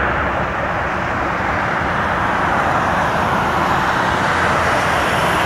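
Airbus A320 jet engines during the landing rollout, heard from a distance as a steady rushing noise with no distinct tones. It dips slightly about a second in and then builds again.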